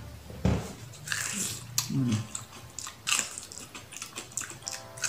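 Close-up sound of a person biting and chewing corn on the cob: a series of short crunchy bites at irregular intervals, with wet chewing between them.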